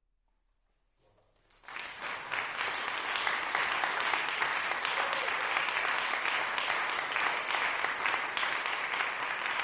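Audience applause starting about a second in after a moment of near silence, quickly swelling to a steady, dense clapping.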